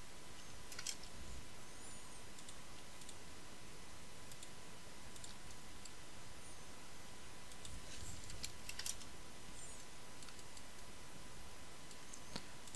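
Faint, scattered clicks of a computer mouse and keyboard, a few at a time with gaps between and a small cluster about eight seconds in, over a steady low microphone hiss.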